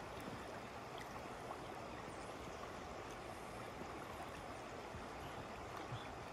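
Steady rush of a shallow river running over rocks and riffles.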